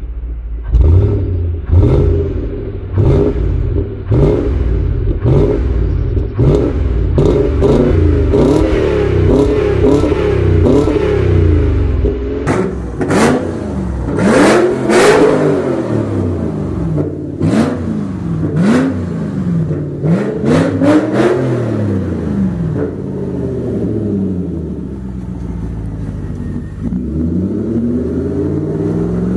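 Volvo S80's naturally aspirated 4.4-litre B8444S V8 revved repeatedly through its exhaust, each rev rising and falling in quick blips. The blips come closer together in the first half and further apart later on.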